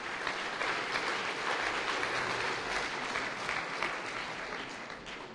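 Audience applauding, swelling quickly and then dying away near the end.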